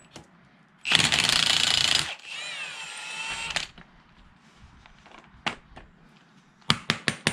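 Impact wrench hammering for about a second as it breaks loose the pinion nut on a GM 10-bolt rear axle. It then spins freely with a wavering whine for a second and a half as the nut runs off. A few metal clicks come near the end.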